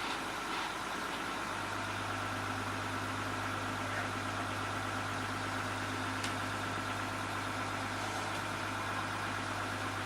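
Diesel engine of a truck-mounted crane running steadily at idle. A low hum joins in about a second and a half in and holds.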